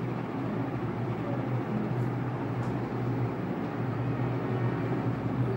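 Steady low hum with an even hiss, constant throughout: room background noise of the kind a running fan or air conditioner makes.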